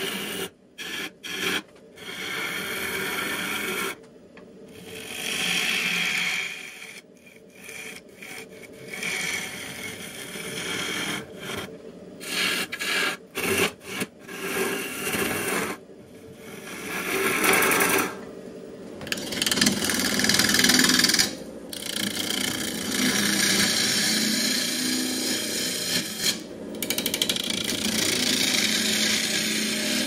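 A wood lathe turns a bowl blank while a gouge cuts the outside. The cutting noise stops and starts many times, then runs in longer, louder stretches in the second half.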